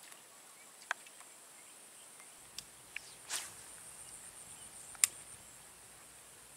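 Steady high-pitched drone of insects, with a few sharp clicks scattered through it and a short swish just past the middle; the loudest click comes about five seconds in.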